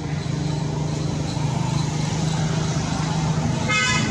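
Motor vehicle engine noise running steadily, with a short horn toot near the end.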